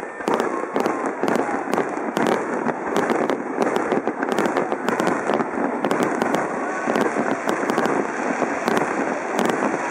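Aerial fireworks shells bursting in a rapid, irregular string of sharp bangs and crackles, several a second, over a steady background din.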